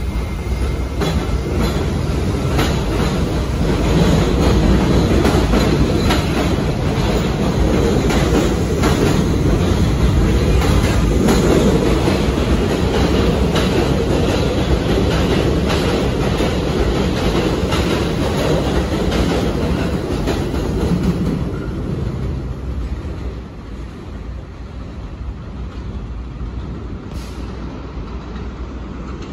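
R68 subway train departing and running past on a steel elevated structure: a heavy rumble with the wheels clicking rapidly over the rail joints. About 22 seconds in, the sound drops away as the train moves off.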